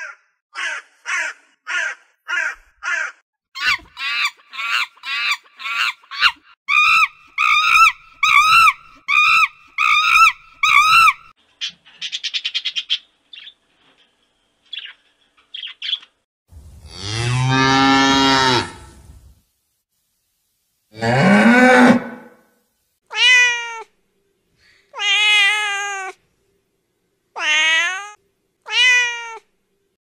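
Crows cawing over and over, about two caws a second, for the first eleven seconds or so. After a short rattling trill and a pause come one long, low drawn-out call and then several shorter meow-like calls that rise and fall in pitch.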